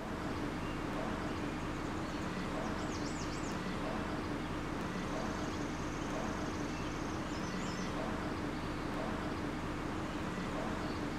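Steady outdoor background noise with a small bird chirping briefly, a quick run of chirps about three seconds in and another near eight seconds.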